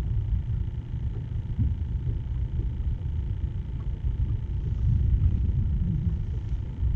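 Wind buffeting the microphone: an uneven low rumble, with a faint steady high hum.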